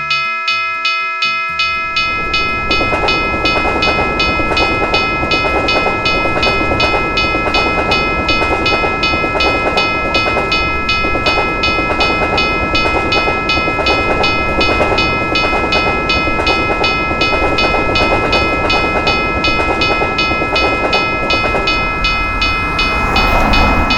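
Railroad crossing bell ringing in a fast, even rhythm. From about two seconds in, the rumble of a passing train runs under it.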